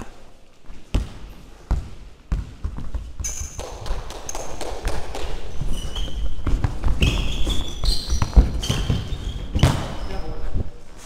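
Indoor football in a sports hall: a string of sharp ball kicks and bounces ringing in the hall, with short high shoe squeaks on the hall floor and the rumble of players running. The sharpest knock comes about eight seconds in.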